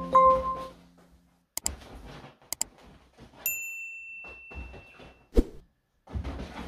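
Sound effects of a subscribe-button overlay. A few chime notes fade out, then two sharp mouse clicks, then a bell-like ding about three and a half seconds in that rings for nearly two seconds. Near the end comes one sharp thump and a brief rustle of bedding as the cat leaps.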